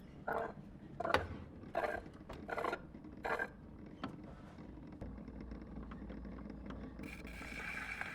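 Wind-up gramophone being worked: about five even scraping strokes, roughly 0.7 s apart, typical of winding the crank, then a low steady rumble of the running mechanism. About seven seconds in, a hiss of needle on record starts.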